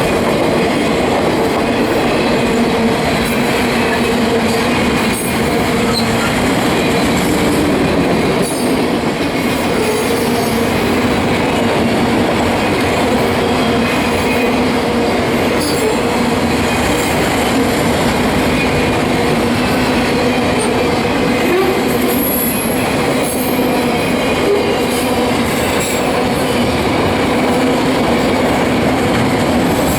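Union Pacific autorack freight cars rolling past, a steady rumble of wheels on rail with frequent clicks and a steady low tone throughout.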